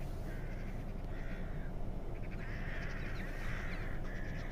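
A flock of crows cawing, many calls overlapping and repeating, over a steady low rumble.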